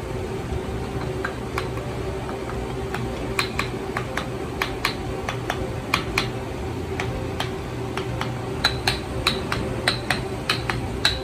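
Wooden mallet lightly tapping the steel flange plate down onto an angle head's body: short, sharp knocks, a few at first and then several a second, coming faster toward the end. The tapping seats the flange plate flush against the body.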